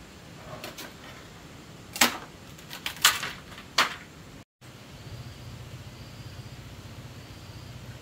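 A few sharp knocks, the loudest about two and three seconds in, with another just before four seconds, over a steady background hiss. After a short cut, a steady low hum runs on.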